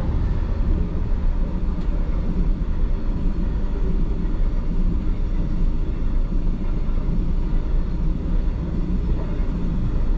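Freight train of alumina hopper wagons rolling past, a steady heavy rumble, heard from inside a stopped car.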